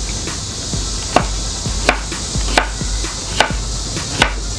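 Knife chopping yellow squash on a wooden cutting board: five sharp, evenly spaced knocks, about one every three-quarters of a second, as the blade hits the board.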